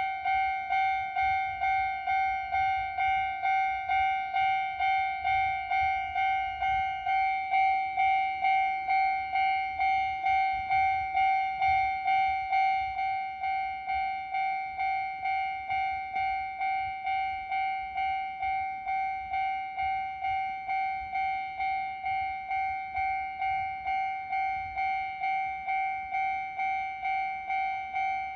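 Level crossing warning bell ringing steadily, about two strikes a second, on one pitch. It drops a little in level about halfway through.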